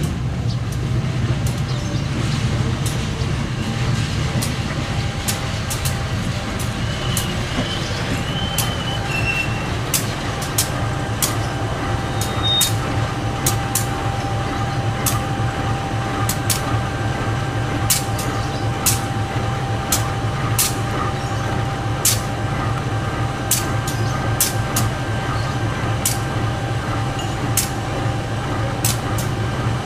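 Train running slowly along the tracks: a steady low rumble with sharp, irregular clacks from the wheels, and a thin steady whine that sets in about a third of the way through.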